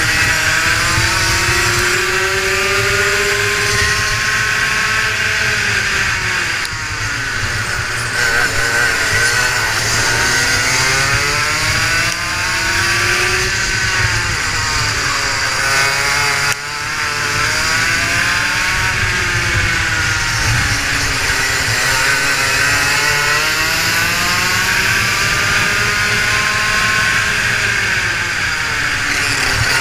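Rotax Max 125cc single-cylinder two-stroke kart engine at racing pace, its revs climbing and falling again and again through the corners and straights. The sound dips sharply a few times where the throttle comes off for braking.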